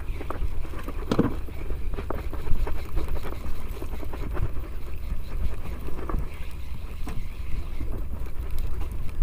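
Wind buffeting the microphone as a steady low rumble, with small waves lapping and splashing against the hull of a small boat on a choppy sea.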